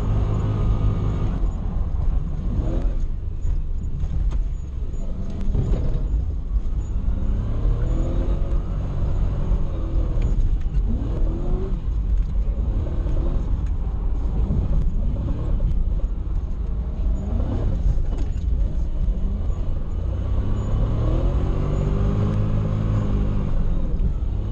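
Toyota 1UZ 4.0-litre V8 in a Nissan 240SX, heard from inside the cabin, revving up and down over and over as the car is driven hard through a drift run.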